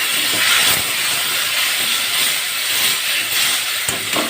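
Water poured into a hot kadai of spiced potatoes frying in oil, hissing and sizzling loudly as it flashes to steam.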